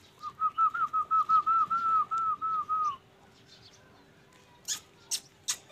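A quick run of about fifteen short, high whistled chirps, about five a second, lasting about three seconds, followed by a few sharp clicks.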